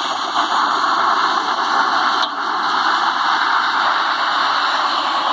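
Steady engine and rushing noise of a parasail tow boat under way, played back through a screen's speaker and re-recorded.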